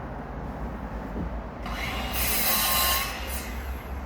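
A piece of wood being rubbed by hand on sandpaper: a steady scratchy scraping that gets louder for about a second in the middle.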